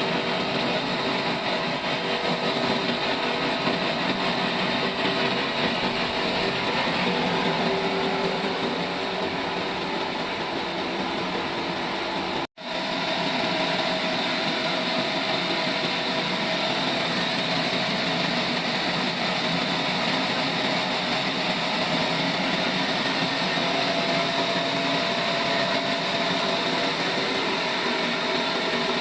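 Sawmill machinery running steadily while sawing mulberry wood: a continuous mechanical din with faint steady tones. The sound drops out for a split second about twelve seconds in, then carries on.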